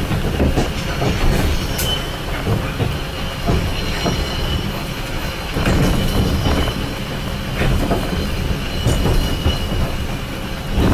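Kintetsu Ikoma Cable funicular car running along its track: a steady low rumble of the wheels on the rails, with a faint high wheel squeal that comes and goes and a few scattered clicks.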